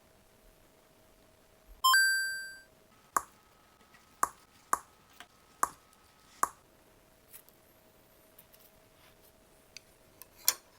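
Tableware being handled: one loud ringing ping about two seconds in that fades over most of a second, then five sharp clinks and a few lighter taps near the end, over a faint steady hum.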